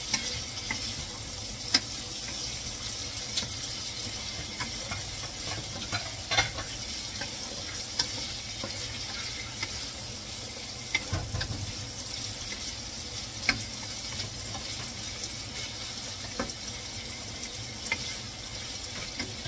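Sliced sausage sizzling in a non-stick frying pan while being browned, stirred with a wooden spatula that knocks against the pan every second or two.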